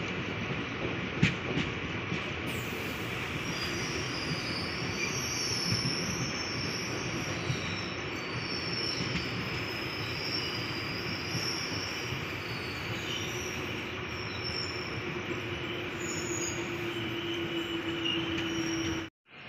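Passenger train running, heard from aboard: a steady rumble of wheels on rail with a wavering high wheel squeal over it and a sharp clack about a second in. The sound cuts off suddenly just before the end.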